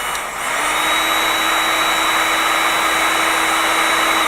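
Electric hot-air blower running steadily, softening the plastic of a model tank so that it looks melted. Just under half a second in it grows louder, with a steady low hum and a high whine over the blowing.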